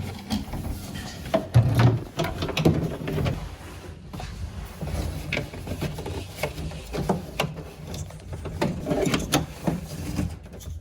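Hands working in a personal watercraft's engine bay, routing wiring: scattered light clicks, knocks and scrapes, irregular and unrhythmic.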